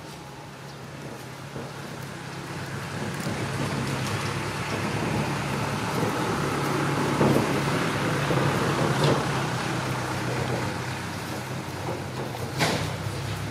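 A steady low engine hum with a rushing noise, swelling to a peak midway and easing off again, with a few sharp knocks, the loudest near the end.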